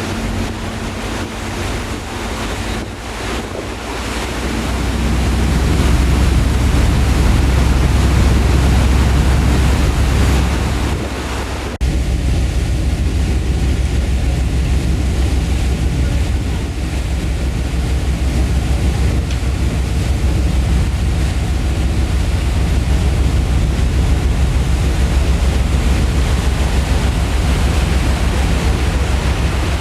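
A ferry under way: a steady low engine rumble with the rush of the sea and wind buffeting the microphone. The rumble builds over the first few seconds and the sound changes abruptly about twelve seconds in.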